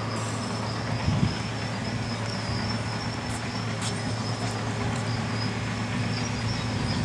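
Steady low background hum with a thin, high, steady whine above it, and one soft thud about a second in.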